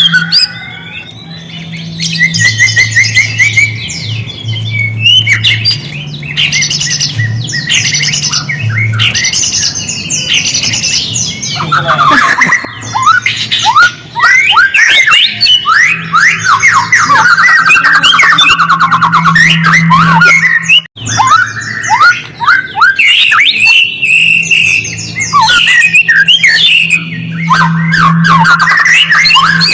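White-rumped shama (murai batu) song: a loud, continuous stream of quick whistles and rapid trills mixed with harsh squawking notes, with a fast rattling trill about halfway through.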